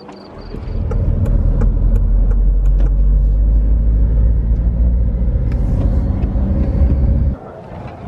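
Loud, steady low rumble of a moving car, road and wind noise picked up from inside the car, cutting off suddenly near the end.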